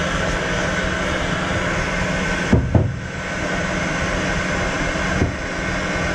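Steady workshop machinery drone with a constant hum, and a couple of short knocks about two and a half seconds in and another a little after five seconds.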